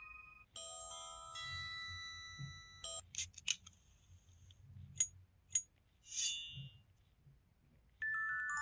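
Phone slide-open sound effects from an IM-U440K handset, played one after another. First a short electronic melody, then a soft-drink-can opening effect, two sharp lighter clicks, and a sword-swish effect. Near the end a new electronic chime melody begins.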